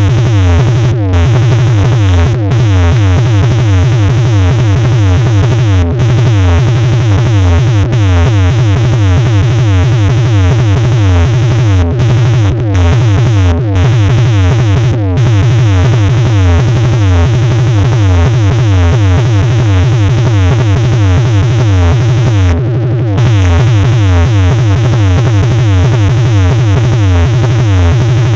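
Loud DJ dance music played over a competition sound-box system: a heavy, pulsing bass beat under repeated falling synth notes.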